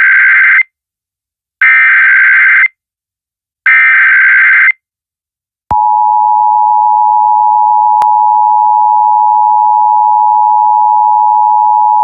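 Emergency Alert System SAME header: three bursts of warbling digital data tones, about a second each and a second apart, which encode the alert (here a child abduction emergency). The steady two-tone EAS attention signal follows about six seconds in and holds for about eight seconds, with a sharp click partway through.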